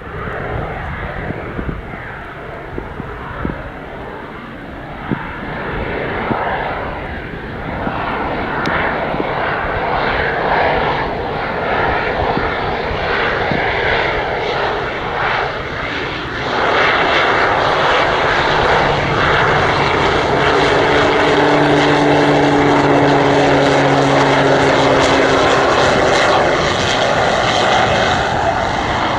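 Air Tractor AT-802's Pratt & Whitney PT6A turboprop engine and propeller running. The sound grows louder as the plane comes close, with a sudden step up about halfway in. A steady high turbine whine runs under it.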